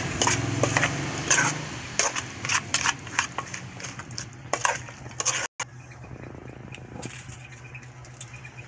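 Metal fork and spoon clinking and scraping against an aluminium mixing bowl as chopped pork with onion and mayonnaise is tossed: a quick, irregular run of clinks. About five and a half seconds in the sound cuts off abruptly; after it there is only a steady low hum with an occasional faint clink.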